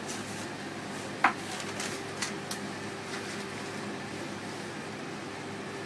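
Steady hum of a kitchen ventilation fan with a constant tone in it, with a few sharp clicks and knocks, the loudest about a second in.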